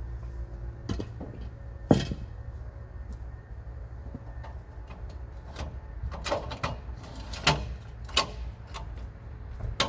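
Scattered metallic clunks and knocks over a low steady rumble, as a portable bandsaw mill is handled and set up for the next cut. The loudest knock comes about two seconds in, with a cluster of smaller ones later.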